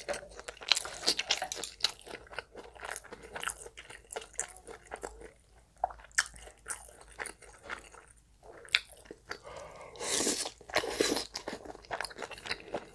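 Close-miked chewing and biting of stir-fried spicy pork (jeyuk-bokkeum): many small, irregular mouth clicks and smacks. About ten seconds in comes a louder, noisier stretch of about a second.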